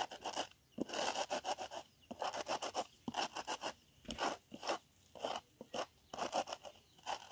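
Wooden rolling pin pushed back and forth over small seeds on a wooden board, crushing and grinding them with gritty scraping strokes that come in quick repeated runs.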